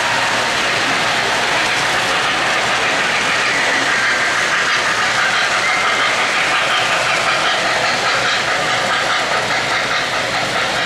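O-gauge three-rail model trains running close by on the layout track: a steady rolling clatter of metal wheels on the rails.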